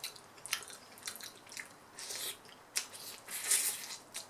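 Close-up mouth sounds of eating: wet chewing with short smacks and clicks, and two longer moist slurping bursts, one about halfway through and a louder one near the end.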